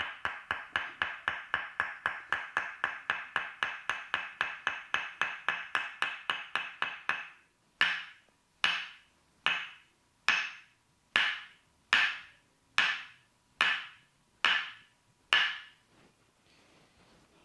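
Tok Sen massage: a wooden mallet tapping a wooden wedge, each knock ringing briefly like a wood block. Fast, even tapping at about four or five knocks a second slows about seven seconds in to single knocks a little under a second apart, which stop shortly before the end.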